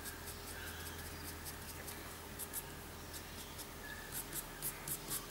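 Blender pen's felt nib rubbing softly on watercolour cardstock, then a run of quicker scratchy strokes near the end as the nib is wiped clean on scrap paper.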